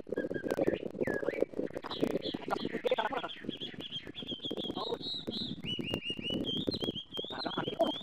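A small bird chirping in a rapid series of short, high notes from about two seconds in, over steady rustling and small crackles from the net being handled.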